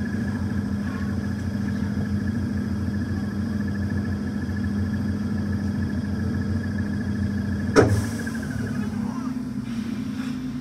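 Stationary electric mountain train's onboard equipment humming steadily with a low and a high steady tone. About eight seconds in, a single sharp clank, after which the hum drops slightly and shifts in pitch.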